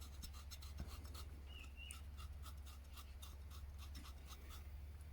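Faint, rapid, even ticking of an old pocket watch's movement, about five ticks a second, stopping shortly before the end.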